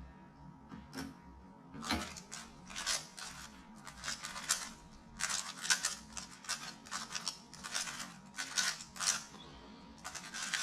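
Rubik's cube being turned quickly by hand: irregular bursts of plastic clicking and rattling as the layers snap round, starting about two seconds in.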